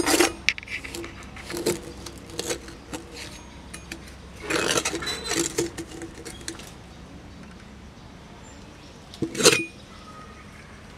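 Steel spatula scraping sand across the lid of a glass-lidded steel container in a metal tray: gritty scrapes with light clinks of metal on glass and steel. A denser run of scraping comes about halfway through, and a single louder knock near the end.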